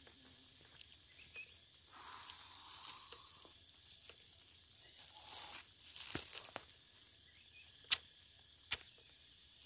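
Fibrous stump wood crackling and tearing as it is pulled apart by hand, then two sharp axe strikes into the stump near the end, a little under a second apart.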